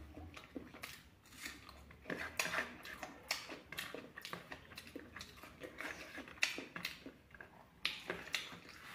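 Close-up eating of fried pork: irregular chewing and crunching with many sharp clicks, and clinks of cutlery on dishes.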